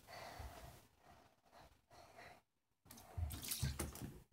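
Faint breathing close to the microphone, with low rumbles from the phone being handled; the breathing is loudest near the end.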